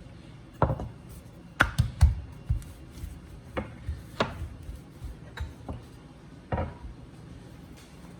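Rolling pin knocking and thudding against the board while dough is rolled out flat: about ten irregular knocks, a few coming in quick pairs.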